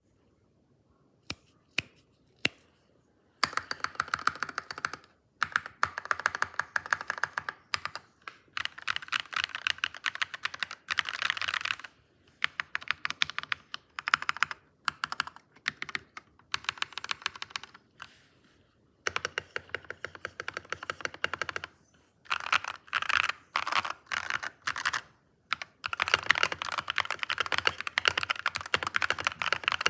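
Typing on a computer keyboard: a few single key clicks, then fast runs of keystrokes in bursts of a few seconds with short pauses between them, the longest steady run near the end.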